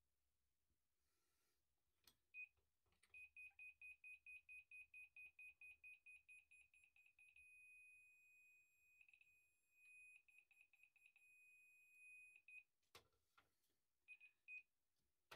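High electronic beeping from an electronic levelling tool. The beeps come about four or five a second and get faster, then merge into a steady tone for several seconds with a few short breaks. A couple more beeps come near the end, and faint knocks sound just before the beeping starts and just after the tone stops.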